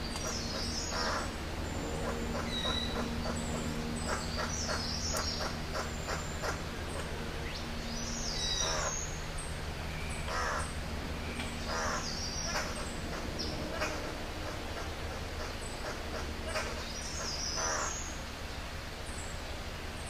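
Male blue bird-of-paradise calling while it hangs upside down in courtship display: a low steady hum, with short harsh, crow-like calls repeated every second or two. High chirps sound above them.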